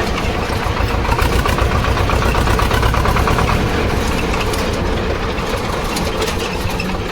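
Swaraj 724 tractor's two-cylinder diesel engine running steadily at low speed, with a fast, even chugging beat.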